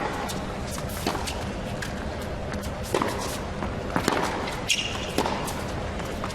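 Tennis rally: the ball struck by rackets and bouncing on the court, sharp pops about a second apart, with a short high squeak about two-thirds of the way through.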